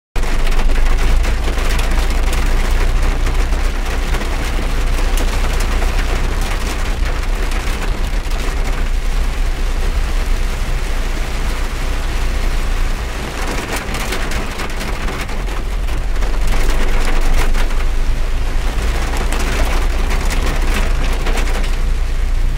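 Heavy rain drumming on a car's roof and windscreen, heard from inside the cabin, over a steady low rumble. It eases slightly for a few seconds past the middle, then picks up again.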